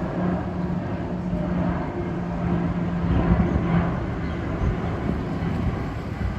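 Airplane passing overhead: a steady engine hum with a rushing noise that swells about three seconds in and then eases off.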